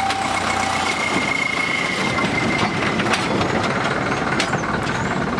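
Narrow-gauge diesel locomotive running as it hauls passenger coaches past, with the rumble and scattered clicks of the train moving along the track. A high thin squeal sounds through the first couple of seconds.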